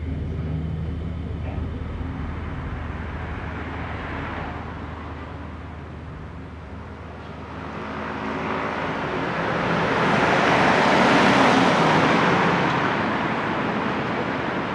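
Indoor room ambience: a steady low hum, with the noise of a car passing outside swelling up through the second half and fading again near the end.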